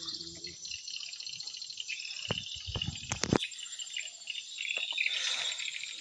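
Dense, continuous high-pitched chirping and twittering of swiftlet calls, with a few sharp knocks about two to three seconds in.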